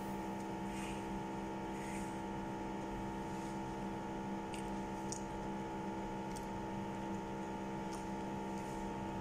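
A steady electrical hum made of several steady tones, with faint short smacks and ticks of someone eating scattered through it.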